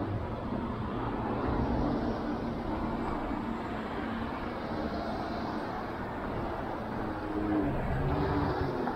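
Street traffic: cars running past on the road, engine hum and tyre noise, steady and a little louder near the end.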